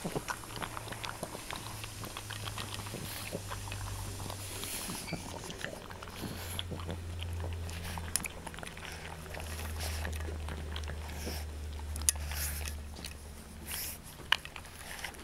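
English bulldog puppies eating dry kibble from stainless steel bowls: a run of crunching and smacking with many sharp clicks, the loudest about twelve and fourteen seconds in.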